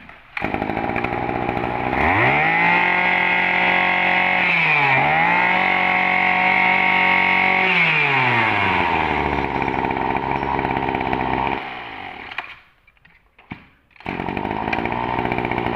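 Small two-stroke brush cutter engine, the Maruyama 23cc, started and run up: it idles, climbs to high revs about two seconds in, dips briefly and climbs again, then falls back to idle. It cuts out about twelve seconds in and starts again near the end, idling.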